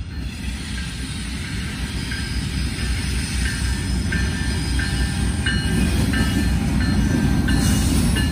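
Norfolk Southern freight train approaching, its low rumble growing steadily louder, with short high squeals from the wheels coming and going.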